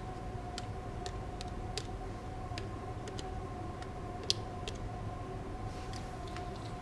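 Small precision screwdriver ticking against the screws and plastic midframe of a Microsoft Lumia 950 XL as its screws are undone: scattered light clicks, one sharper about four seconds in, over a faint steady hum.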